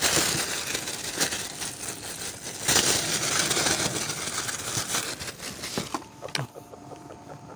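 Mesh fish bag rustling and crinkling close to the microphone as it is handled, loudest about three seconds in, then dying down near the end.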